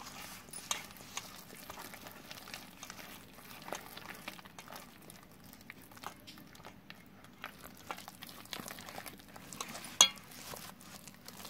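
A hand beating thick gram-flour (besan) batter in a stainless steel bowl: soft, irregular stirring sounds with light clicks against the metal, and one sharper knock about ten seconds in.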